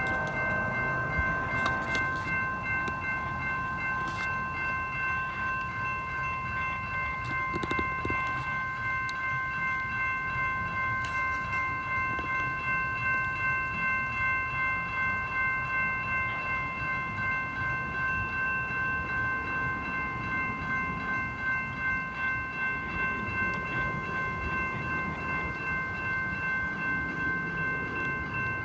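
A train running past, with a low rumble under a steady high ringing of several tones held the whole time.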